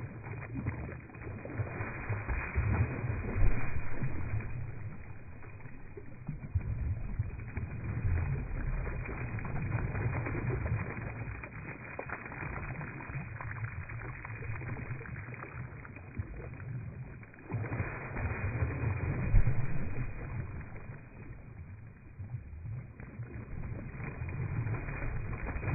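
Water splashing from a hose jet and a dog biting at it, slowed down with the slow-motion picture into deep, drawn-out rumbling and whooshing. It swells louder a few seconds in and again about three-quarters of the way through.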